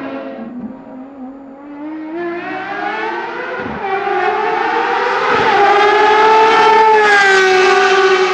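Ferrari FXX Evolution's V12 at full throttle: after a quieter first couple of seconds, the note climbs steadily in pitch through two quick upshifts and grows loud, holding a high steady wail near the end.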